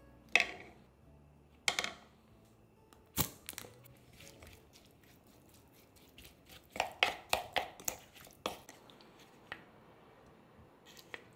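Wooden spoon knocking and scraping against a wooden bowl as cut green chili peppers are tossed with a seasoning paste: single sharp knocks at first, then a quick run of knocks about seven to eight seconds in.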